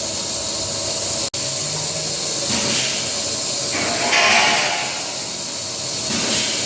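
Çeçil cheese forming machine running with a steady steam-like hiss, and a brief higher-pitched squeal about four seconds in.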